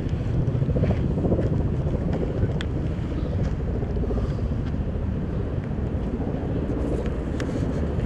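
Steady low rumble of wind buffeting the microphone.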